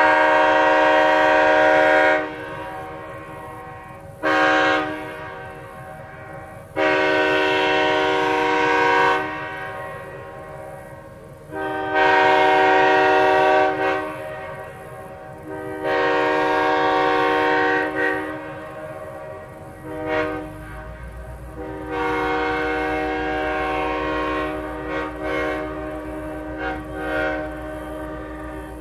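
Large air horn sounded in a series of blasts of about two to three seconds each, with one short toot about four seconds in and a longer, wavering blast in the last third. A low steady rumble comes in about two-thirds of the way through.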